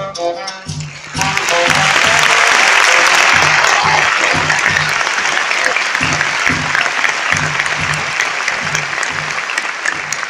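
A saxophone plays its last notes over a backing track with a steady beat, and about a second in a large audience bursts into loud applause that carries on over the beat, slowly easing off.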